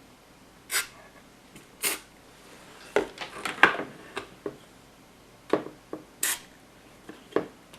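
Three short hisses of an aerosol spray (WD-40) squirted into a computer speaker's volume potentiometers, with clicks and knocks of the parts being handled and wiggled in between. The spray is meant to clean the pots, whose noise the speaker makes when played.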